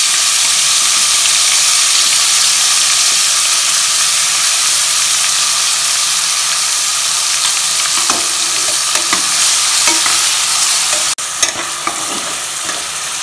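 Coarsely ground onion sizzling in hot oil with whole spices in an aluminium pressure-cooker pan, as it fries to lose its raw smell; a steel spatula scrapes and taps the pan a few times as it is stirred. The sizzle drops suddenly about eleven seconds in and carries on a little quieter.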